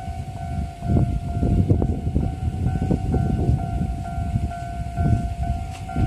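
Japanese railway level-crossing warning bell ringing in steady, repeated electronic dings, signalling that a train is approaching, over a low rumbling noise.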